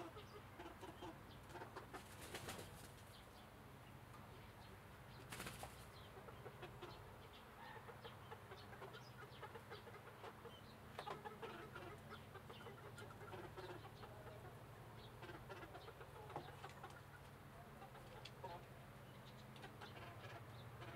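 Quiet sounds of young chickens: soft scattered clucks and chirps, with two brief rustles a few seconds in, over a faint low hum.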